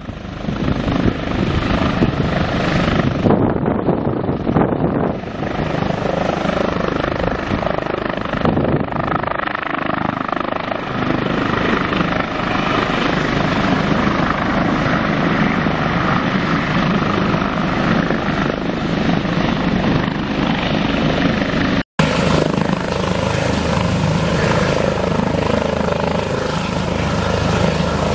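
Airbus H145 twin-turbine helicopter with a Fenestron tail rotor flying low and slow over a runway: steady rotor and turbine noise. About 22 seconds in, the sound cuts suddenly to a steadier helicopter sound.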